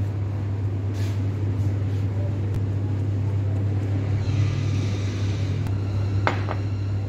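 Steady low hum, with light handling noise and a sharp click about six seconds in as a steel hub is handled on a cloth buffing wheel.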